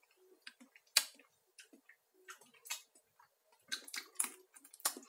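Sparse small clicks and taps of a metal spoon against the mayonnaise tub, faint and irregular, with the sharpest tap about a second in and a quick run of taps near the end.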